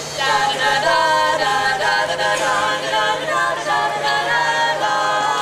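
Female a cappella vocal quartet singing in harmony, several voices holding different notes together with no instruments.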